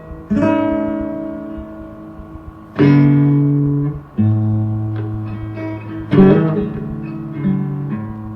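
Blues guitar playing without vocals: single chords struck every second or two and left to ring out.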